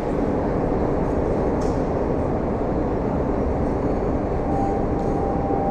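Train at a station platform: a steady, loud rumble of the train, with a faint high tone joining near the end.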